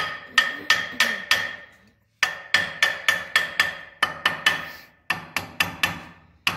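Hand hammer striking the cast housing of a 1933 Ford banjo rear axle, about three blows a second in short runs, each blow ringing. The blows are meant to jar the rusted, frozen pinion bearing loose while a puller bolt holds pressure on it.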